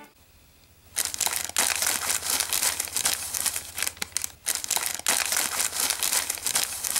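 Crinkly plastic chip bag being handled and squeezed, starting about a second in: a dense run of irregular crackles and rustles.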